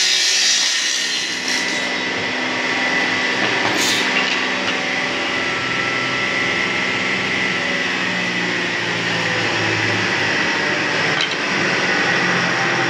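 Table saw running with no load on the blade, a steady motor hum and blade whine. A cut through pine moulding finishes in the first two seconds, with a hiss of blade through wood.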